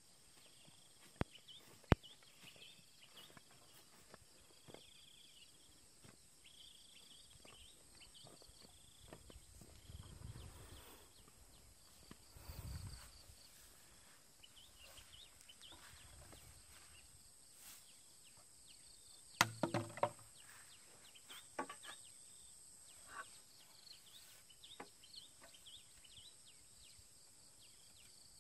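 Faint rural ambience of insects and birds chirping, with footsteps and rustling through grass and a few sharp knocks; a short cluster of louder thuds comes about two-thirds of the way through.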